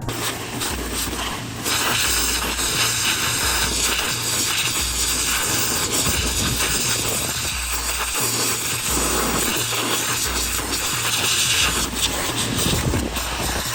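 Pressure washer spraying, a steady loud hiss that starts about two seconds in and eases near the end, over background music with a repeating bass line.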